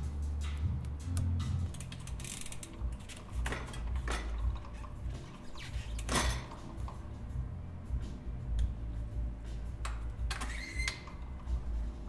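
Bicycle parts being worked on by hand: scattered clicks, light metallic rattles and a few short scrapes as cable housing and components are handled.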